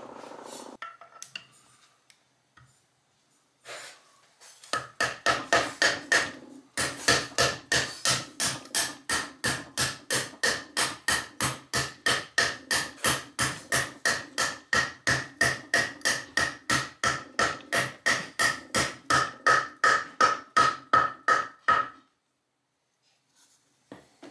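Orange soft-faced mallet tapping a ball bearing into the bore of a cast-iron transmission housing: a few scattered knocks, then a long even run of light strikes about three a second, each leaving a short metallic ring, stopping abruptly near the end.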